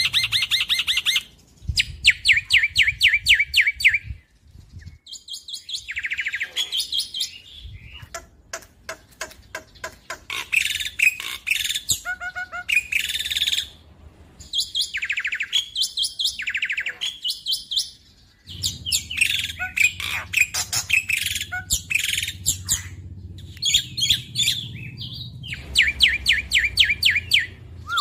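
Black-winged starling singing a loud, persistent song. It sends out phrases of rapid, evenly spaced high chirps, each a second or two long, with short breaks between them.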